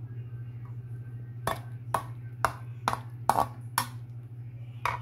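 A spatula knocking against a metal wok while a cooked pork and opo (bottle gourd) dish is stirred: about eight sharp knocks at uneven intervals, starting about a second and a half in, over a steady low hum.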